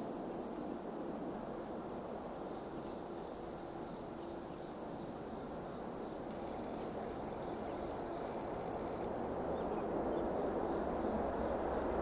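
Steady low rushing background noise with a steady high-pitched whine above it, growing a little louder near the end.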